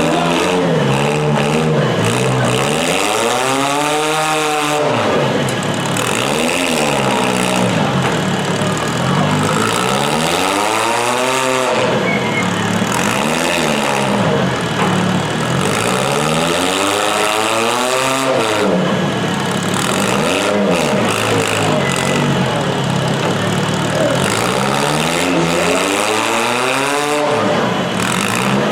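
Demolition derby car engines running loud and revving hard over and over, their pitch rising and falling again every couple of seconds, amid the constant din of the arena.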